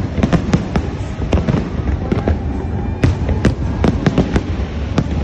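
Fireworks display: a rapid, irregular string of sharp bangs and crackles, several a second, over a steady low rumble.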